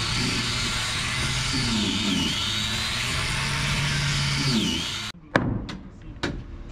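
A handheld power tool running steadily with a low hum and a high whine that dips twice. It cuts off suddenly, and about four sharp hammer blows on timber deck planking follow, the first the loudest.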